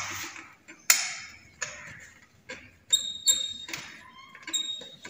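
Sharp metallic clicks and knocks from an oxygen cylinder and its connector being handled and seated in place, about seven separate strokes. A couple of them, a little past halfway and near the end, leave a short high metallic ring.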